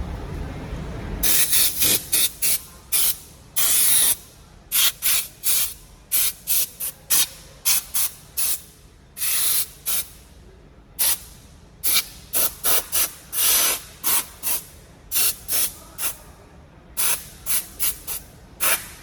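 Aerosol spray can sprayed in dozens of short hissing bursts, some in quick runs, to freshen and clean a dirty housing. A low rumble cuts off about a second in.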